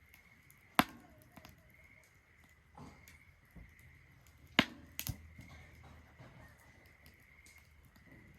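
Wood fire crackling in a Solo Stove Ranger fire pit, with scattered sharp pops: a loud one about a second in and two more just past halfway.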